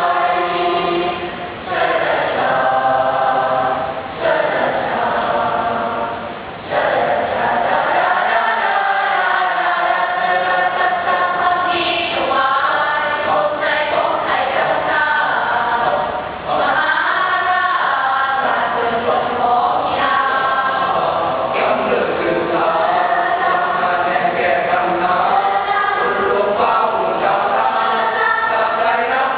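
Student choir singing in harmony, with several voice parts holding long phrases and taking short breaks between them.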